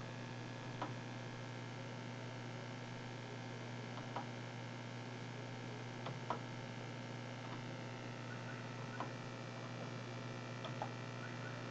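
Steady electrical mains hum with a handful of faint clicks scattered a second or more apart, the clearest about six seconds in.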